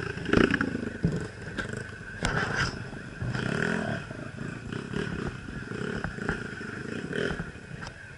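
Dirt bike engine running and revving as it rides a muddy trail, with repeated knocks and clatter from the bike jolting over ruts.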